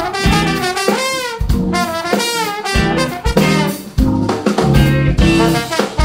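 Live jazz band: a trombone plays a lead line with several bends in pitch over a drum kit and electric bass.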